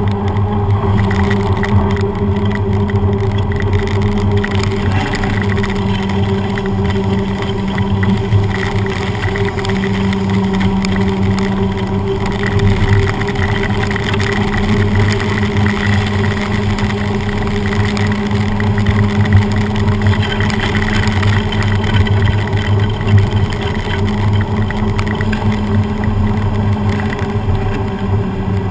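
Bicycle tyre rolling on a wet road, heard from just above the front wheel: a steady droning hum over the hiss of road and spray noise.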